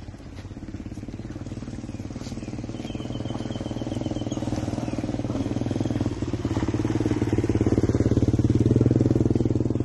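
A small engine running with a steady drone, growing louder over several seconds to a peak near the end, then easing off slightly.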